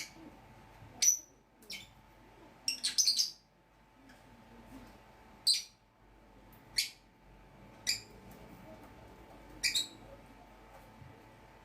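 Pet lovebirds and budgerigars giving short, sharp, shrill chirps, one every second or two, with a quick run of several calls about three seconds in.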